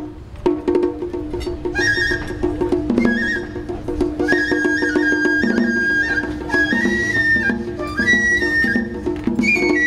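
Bamboo transverse flute playing a high melody of held, stepping notes that comes in about two seconds in, over a repeating lower accompaniment, after a few sharp strokes at the start.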